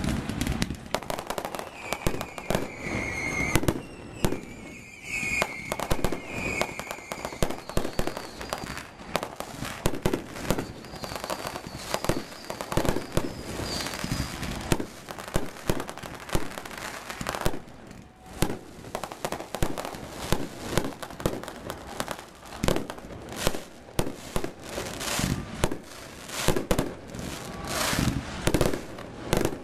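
Aerial fireworks display: a continuous barrage of shell bursts and bangs mixed with crackling stars.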